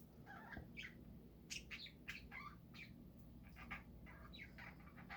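Pet budgerigars chirping softly: a run of short, quick chirps one after another.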